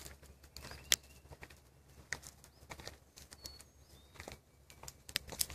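Quiet woodland ambience: scattered sharp clicks and crackles, with a few short, high bird chirps.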